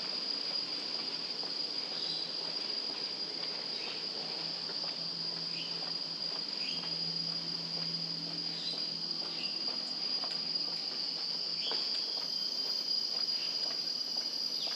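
Steady, high-pitched drone of insects singing without a break, with a few short faint chirps over it.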